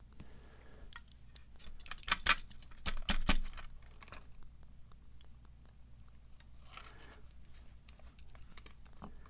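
Small metal parts of a padlock and picking tools clicking and rattling as they are handled, with a quick run of sharp clicks between about two and three and a half seconds in, then only faint ticks.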